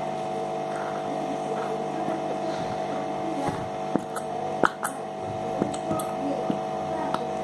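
A steady electrical hum, with a scattered series of short light clicks and taps from about the middle on.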